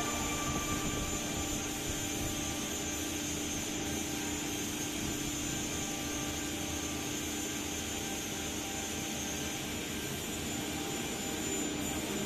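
Holztek PRO-R1AF CNC nesting router running: a steady rushing machine noise with a low steady hum under it.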